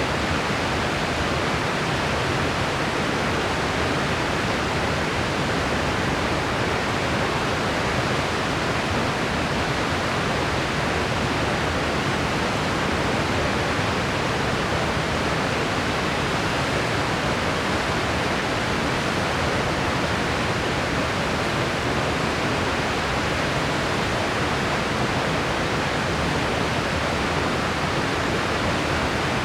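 Steady, unchanging white noise hiss, even and featureless throughout.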